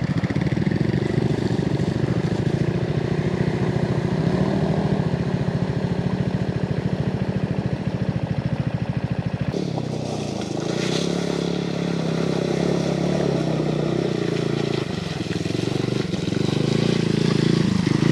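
125 cc motorcycle engine running at low speed with a fast, even pulsing beat. About halfway through the sound changes to a motorcycle riding through a shallow stream ford toward the camera, its engine note rising near the end.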